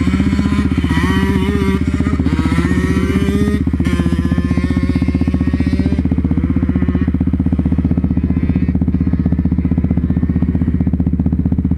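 Sport ATV engine running close to the rider's helmet camera while riding over dirt. The pitch rises and falls with the throttle for the first few seconds, then holds steady.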